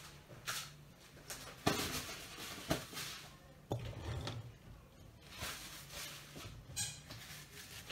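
Kitchen handling noises: a few light knocks and clicks with some rustling as food and containers are worked over a baking dish, over a faint steady hum.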